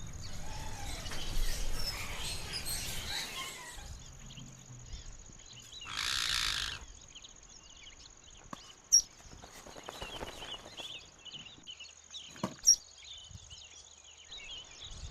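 Outdoor ambience with small birds chirping. There is a rough, noisy stretch at the start, a short burst of hiss about six seconds in, and two sharp clicks later on that are the loudest sounds.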